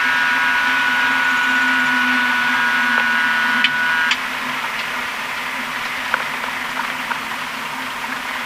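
Cockpit drone of a Piper PA-32R's six-cylinder engine at low power, with a steady high tone sounding in several pitches at once that cuts off with a click about four seconds in. The drone carries on, slightly quieter.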